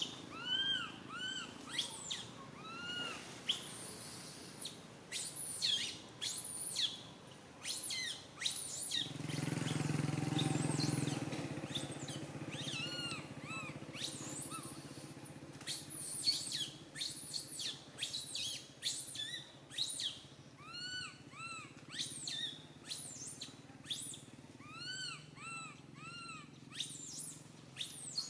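Infant macaque crying: repeated short arching squeals, often in quick runs of two or three, with brief pauses between runs. A low rumble swells for a few seconds about a third of the way in.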